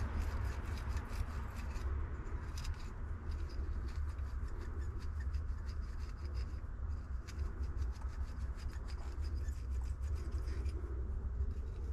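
Red Scotch-Brite pad scrubbing the copper commutator of a Mercedes seat-bolster air-pump motor: a fast, continuous scratchy rubbing made of many small scrapes, over a low steady rumble. The scrubbing clears the black deposits off the copper so the motor's spring contacts can make contact again.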